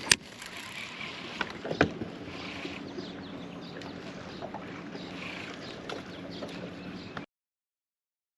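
Steady hum and water noise from a fishing boat, with a sharp click just after the start and another about two seconds in. The sound cuts off abruptly near the end.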